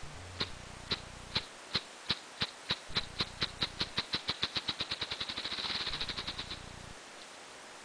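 Male ruffed grouse drumming: its wing beats start as separate thumps about half a second apart, speed up steadily and run together into a fast whir, then stop suddenly about six and a half seconds in.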